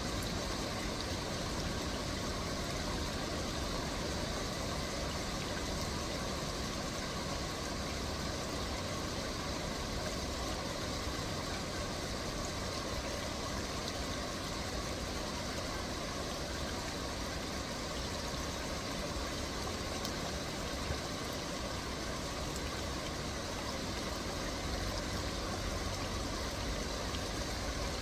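Steady outdoor ambient noise: a low, even rumble with a faint hiss above it, and no distinct events.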